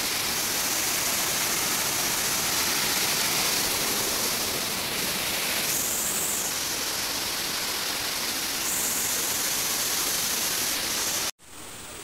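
Fast forest stream rushing over rocks close by: steady white-water noise that cuts off abruptly near the end.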